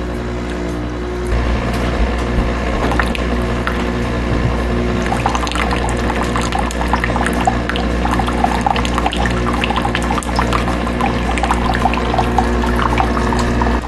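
Nespresso Vertuo Plus coffee machine running its first cleaning cycle: a steady pump hum, then hot water splashing and spitting from the spout into a bowl, growing busier about five seconds in.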